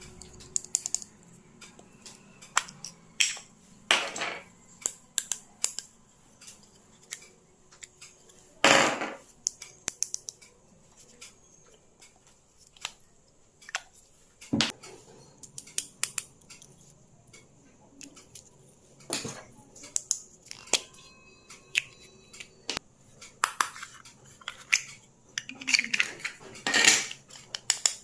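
Small objects being handled close up: a run of irregular sharp clicks and taps with a few short scraping or rustling sounds, the loudest about nine seconds in and again near the end.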